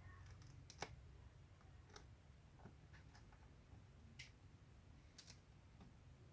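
Faint, irregular clicks and crackles of a cat's teeth biting the splintered edge of a plywood board, the sharpest about a second in.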